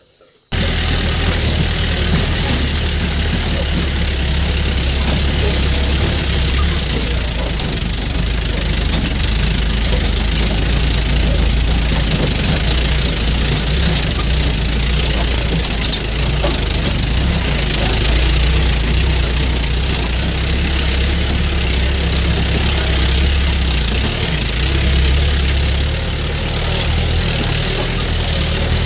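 Jeep engine running steadily as it drives over a rough, rocky dirt track, with a constant low rumble and road noise; it starts abruptly about half a second in.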